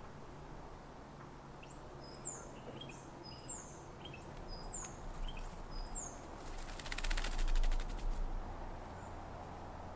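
A bird repeats a short high note that slides downward, about seven times. About six and a half seconds in comes a loud burst of rapid fluttering, lasting about a second and a half: a tūī shaking water from its feathers in a bird bath.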